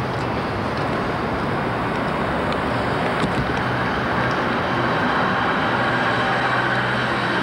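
Steady rushing background noise with a low hum underneath and a few faint ticks.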